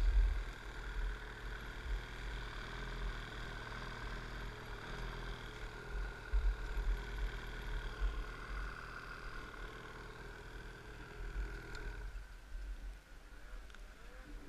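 Snowmobile engine idling steadily, then cutting off about twelve seconds in, with gusty wind rumble on the helmet microphone throughout.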